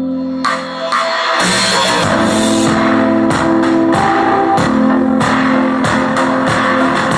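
Guitar-led music played through a Boss DD-3 digital delay pedal with the delay effect switched on. Held notes give way, about half a second in, to a fuller passage with strummed guitar and a regular beat.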